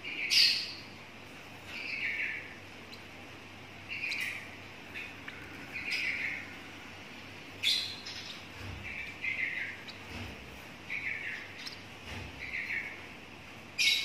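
A lovebird chick about 17 days old giving short, harsh chirping calls, repeated every second or two, a few of them louder and sharper. This is typical of a chick begging for food as it bobs and flaps its wings.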